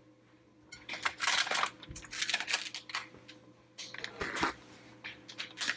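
Irregular rustling and handling noise with a couple of dull knocks: things being rummaged through to fetch a power adapter.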